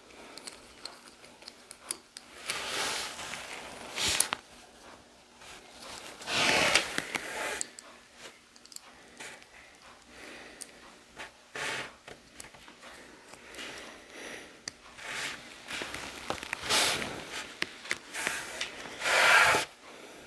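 Hands handling small plastic LEGO pieces: irregular rubbing and scraping, with a few sharp clicks as the parts are fitted together.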